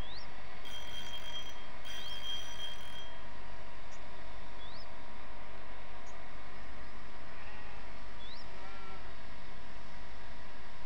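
Spinning reel's drag buzzing in short runs during the first three seconds as a hooked fish pulls line off, then stopping. A bird's short rising whistle repeats every couple of seconds over a steady low rumble.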